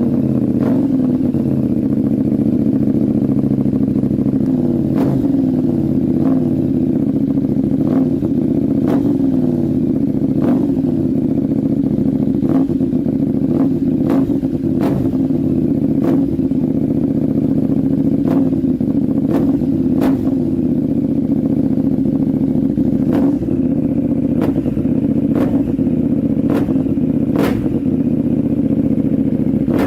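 KTM 890 Duke R parallel-twin engine fitted with an Arrow aftermarket exhaust, running steadily at a nearly constant engine speed. Short sharp ticks come through about once a second.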